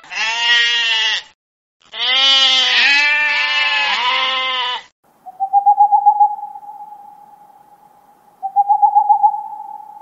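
Sheep bleating twice in long, wavering bleats. Then an owl's long call holds one steady pitch for about five seconds, breaking into a fast trill twice.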